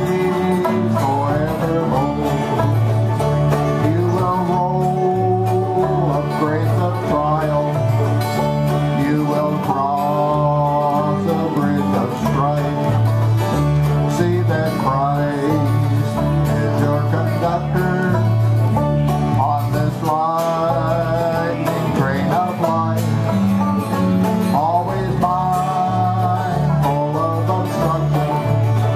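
Old-time string band playing a country tune together: acoustic guitar, banjo and electric bass, the bass walking back and forth between two low notes under the plucked melody.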